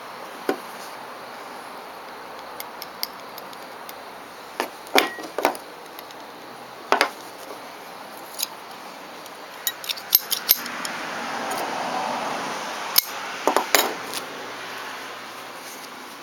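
Sharp metallic clicks and clacks from a brass-handled Higonokami folding knife being handled, its loose blade knocking at the rivet pivot. The clicks are scattered, some in quick clusters. A soft rustling swells and fades in the second half.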